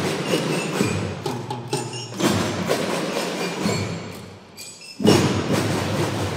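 Children's drum band playing: drums with ringing mallet bells. Full-band accents come about two seconds in and again about five seconds in, after a brief quieter stretch.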